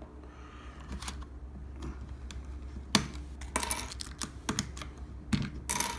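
Small plastic toy packaging being handled and opened by hand: irregular light clicks and crinkles, coming thicker in the middle and again just before the end.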